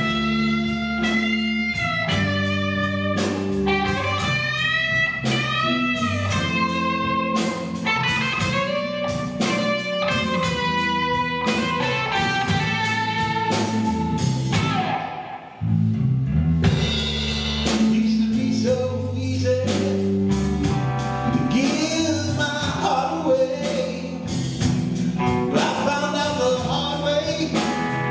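Live rock band playing a bluesy number on electric guitars, bass guitar and drum kit, with bent notes over a steady bass and drums. The band drops away briefly about halfway, then comes back in at full level.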